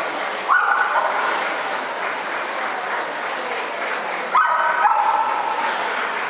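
A dog giving two high, drawn-out yelping whines, about half a second in and again about four seconds in, each dropping in pitch partway through. Clapping and crowd noise of a large hall run underneath.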